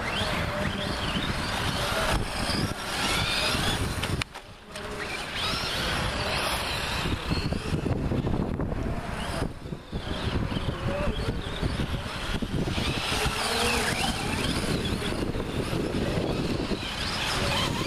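Radio-controlled model cars driving on packed dirt and gravel: motor whine rising and falling in pitch over a steady rough noise.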